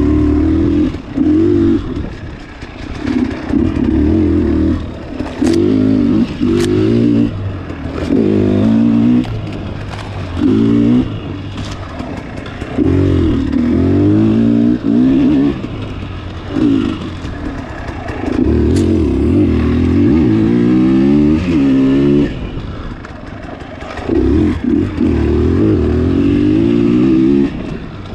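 Dirt bike engine ridden hard on and off the throttle. It revs up in repeated surges, its pitch climbing through each one, then drops back between them.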